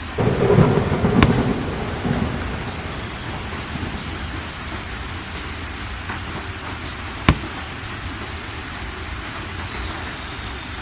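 Steady rain sound effect with a rumble of thunder that starts just after the opening, peaks in a sharp crack about a second in, and fades out by about two seconds; a single sharp click about seven seconds in.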